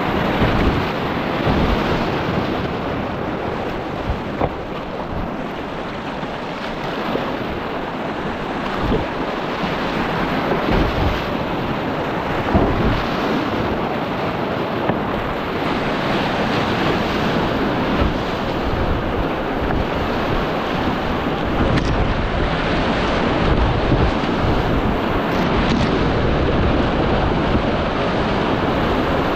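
Whitewater rapids rushing and splashing around a kayak running them, heard close at water level, with gusts of wind buffeting the microphone.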